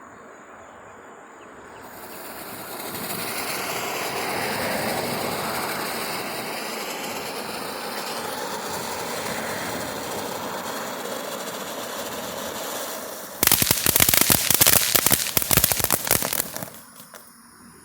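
Consumer ground fountain firework (TNT 'Rowdy') burning. About two seconds in, a steady hissing spray of sparks starts and builds, then near the end it turns into about three seconds of dense, rapid crackling before it dies out.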